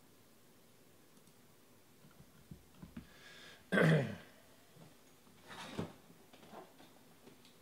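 Quiet room with a person clearing their throat once, about four seconds in, and a shorter, softer breathy noise about a second and a half later. A few faint clicks in between.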